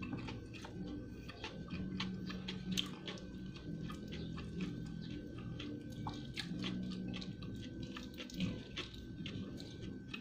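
Close-up mouth sounds of a person chewing soft braised pork hock and rice: many small wet clicks and lip smacks at an irregular pace, over a low background hum.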